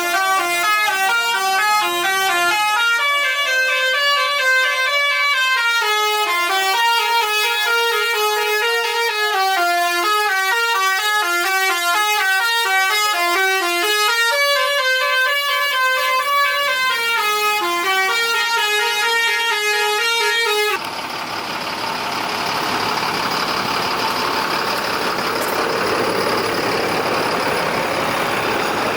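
Indonesian 'telolet' bus horn playing a stepping multi-note melody over and over, several horn notes sounding together. It cuts off suddenly about 21 seconds in, leaving a steady rushing vehicle noise.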